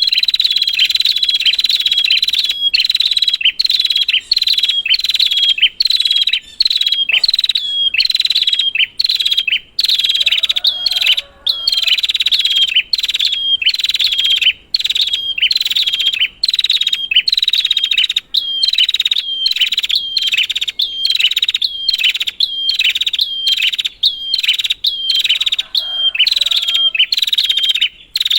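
Prenjak (prinia) calling nonstop: loud, high, rapidly repeated chirping notes, about two calls a second with only brief breaks.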